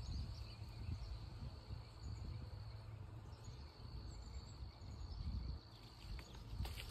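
Insects buzzing in one steady high-pitched trill that breaks off for a moment about three seconds in, over a low steady rumble.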